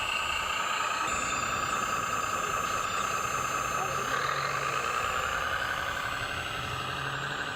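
Radio-controlled trucks' electric motors and gear drives whining steadily, the pitch wavering up and down with the throttle.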